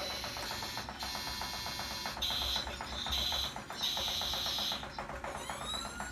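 Toy fire truck's electronic sound circuit playing alarm-like beeps and rising siren sweeps through a small speaker, over a fast, even ticking.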